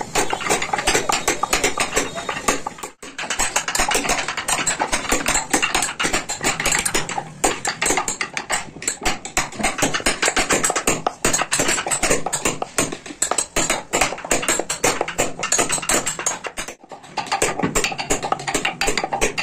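Rapid, steady taps of a small hammer driving a hand chisel and punch into a wooden vase, several sharp clicks a second, pausing briefly about three seconds in and again near the end.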